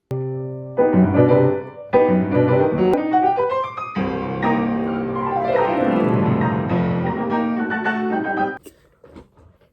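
Piano being played, in several short stretches joined by abrupt cuts, with a falling run of notes in the middle; the playing stops near the end.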